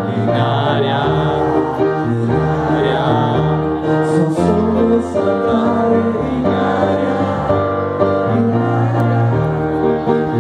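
Live music: a keyboard playing held piano chords, with a male voice singing over them into a microphone.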